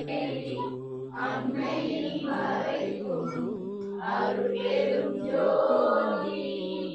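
Several voices chanting a devotional mantra in unison, in long held notes.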